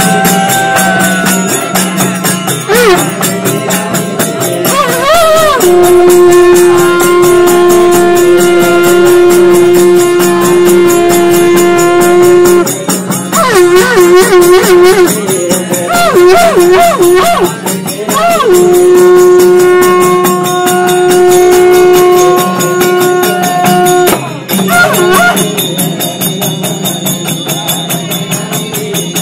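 Nepali devotional bhajan music: voices singing long held notes and wavering lines over a harmonium. Small hand cymbals and a jingling frame drum keep up a fast, even beat.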